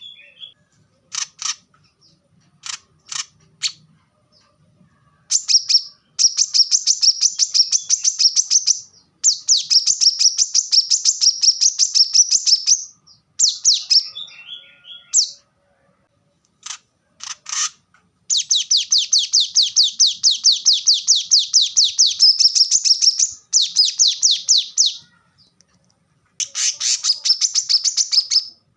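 Brown-throated sunbird (kolibri kelapa) singing: fast, high trills of rapidly repeated notes in bursts of one to four seconds, with short single sharp notes in the gaps.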